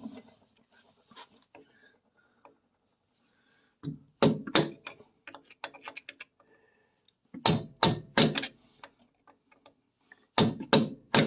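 Sharp metal-on-metal knocks, struck in three bursts of a few blows each about three seconds apart, driving a trailing arm bolt out of a Triumph Spitfire's rear suspension with a makeshift tool.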